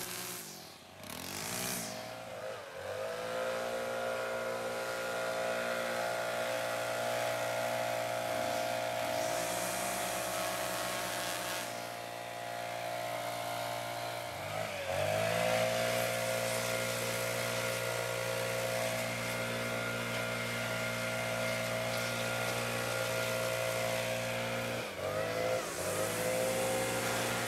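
Small two-stroke engines of handheld landscaping power tools, a hedge trimmer and a backpack leaf blower, running near full throttle. Several times the engine pitch drops as the throttle is let off and climbs back up: about two seconds in, about halfway, and shortly before the end.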